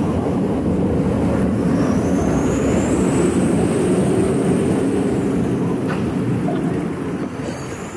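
Steady noise of motor traffic on a busy road, heard while riding a bicycle, with a faint high whine that rises and then falls about halfway through.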